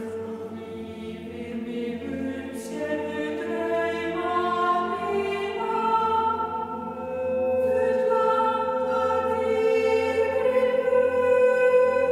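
Choir singing long held chords that swell louder, moving to a new, higher chord about seven seconds in.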